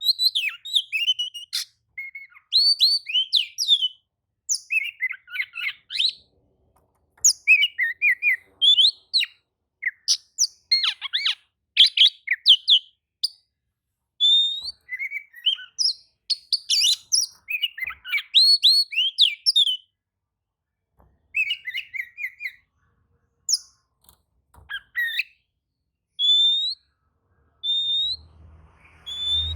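Oriental magpie-robin (kacer) singing continuously: fast, varied phrases of clear whistles, sliding notes and chattering trills, broken by brief pauses about 7, 20 and 23 seconds in.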